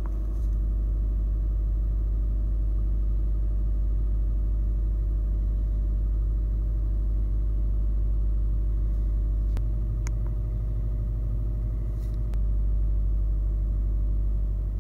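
Car engine idling steadily just after a cold start, heard from inside the cabin, with a few faint clicks about ten and twelve seconds in.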